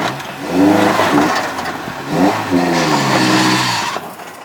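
Toyota 4Runner engine revving hard in three bursts while crawling off road, the pitch rising and falling with each, then easing off near the end.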